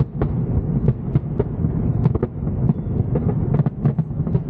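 Fireworks display bursting in quick, irregular succession: many sharp bangs and cracks over a continuous low rumble.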